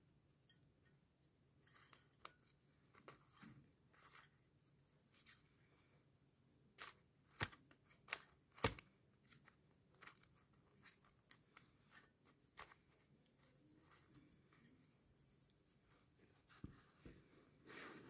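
QiYi stickerless 3x3 speed cube being turned by hand: the plastic layers click and scrape faintly as they turn, with two sharper snaps around seven and a half and nine seconds in.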